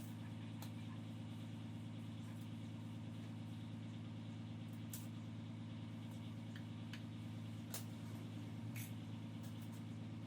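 A steady low hum, like a motor or electrical equipment running, with a few faint sharp clicks scattered through it.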